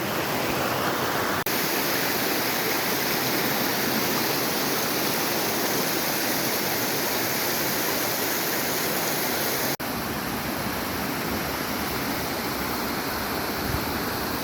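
Rushing river water tumbling over a waterfall: a steady, even roar, broken twice by a momentary dropout, about a second and a half in and near ten seconds.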